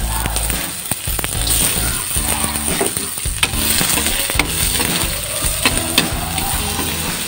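Chopped garlic and red onion sizzling in hot oil in a nonstick pan as a spatula stirs them, with several sharp taps and scrapes of the spatula against the pan.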